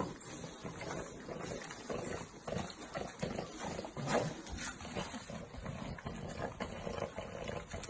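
A group of French bulldogs breathing noisily and making small vocal sounds at close quarters as they lick and nuzzle each other's faces. The sounds come as a steady run of short, irregular bursts.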